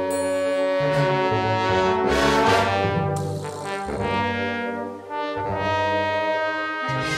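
Brass-led wind band music: trumpets and trombones holding full chords, with the bass line moving to a new note every second or so and a brighter swell about two seconds in.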